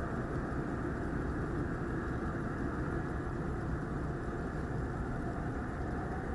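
Steady low engine rumble from squid-fishing boats running in the harbour, with no breaks or changes.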